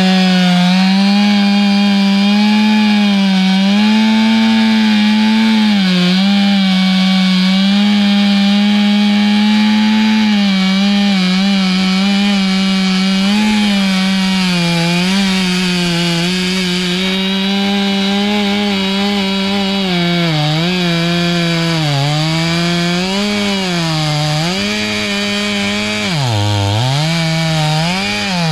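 Big Stihl two-stroke chainsaw at full throttle cutting through a large oak trunk. The engine holds a steady high pitch at first, then sags and recovers again and again as the cut loads it, with one deep bog a couple of seconds before the end.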